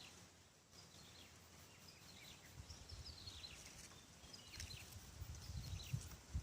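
Short, high-pitched, falling calls repeating several times a second, which the angler takes for a frog crying as a snake eats it. Low handling thumps and rustles run underneath in the second half.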